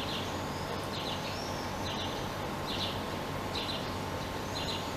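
A small bird repeating a short, high chirping call over and over, a little under twice a second, over a steady low background hum.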